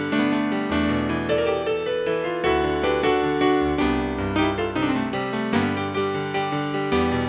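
Kurzweil KP110 arranger keyboard played with both hands in a piano voice: chords over a moving bass line, with new notes struck several times a second.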